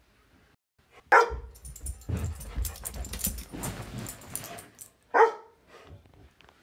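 Two loud single barks from a black Labrador, one about a second in and one about five seconds in. Between them comes a stretch of thumping and clattering.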